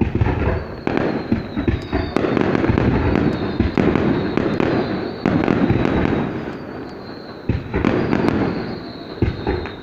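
Aerial fireworks display, a dense run of booming bursts and crackling with no break, swelling and easing in loudness.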